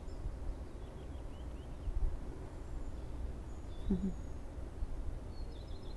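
Quiet bedroom room tone with a steady low rumble and a few faint high chirps, and a short low voiced murmur from the resting woman about four seconds in.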